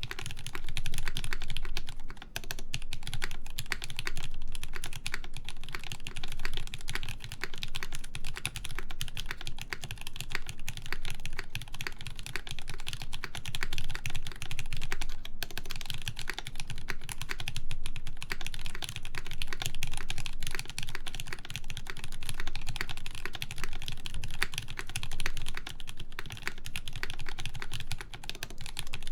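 Fast continuous typing on a CannonKeys Brutal v2 1800 mechanical keyboard: lubed JWK Lavender linear switches in a full aluminium plate, with GMK keycaps, making dense, steady key clacks.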